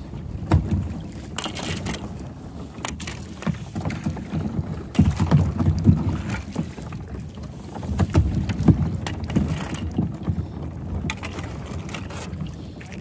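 Thin lake ice breaking and scraping against a plastic kayak's hull as it is pushed through, with many sharp cracks and the clinking of broken ice pieces, coming in surges every few seconds.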